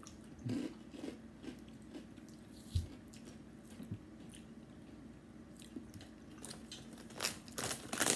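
Fritos Honey BBQ Flavored Twists corn chips being bitten and chewed, in irregular crisp crunches. The strongest come about half a second and nearly three seconds in, with another cluster near the end.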